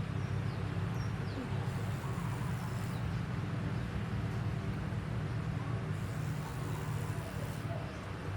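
A steady low mechanical hum under general outdoor noise, with a few short high chirps in the first few seconds.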